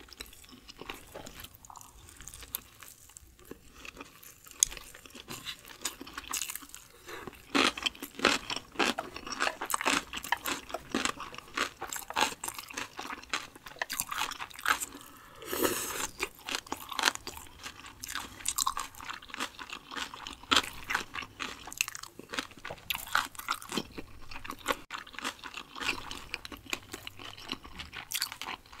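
Close-miked chewing of crunchy food in the mouth. It is faint for the first several seconds, then turns into dense, crisp crunching.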